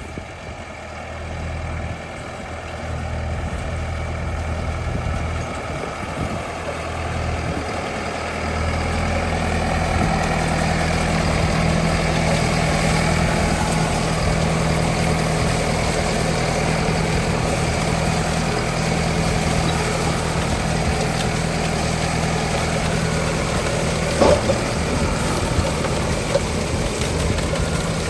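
Engine of a leek harvesting machine running steadily at work, growing louder over the first ten seconds and then holding even. A single sharp knock comes near the end.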